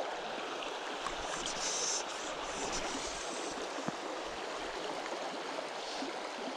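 Shallow gravel-bed stream running over stones, a steady rush of water.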